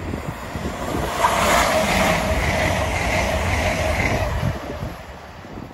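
Lumo Class 803 electric multiple unit passing close at high speed, a rush of wheel and air noise that swells about a second in and fades away after about four seconds.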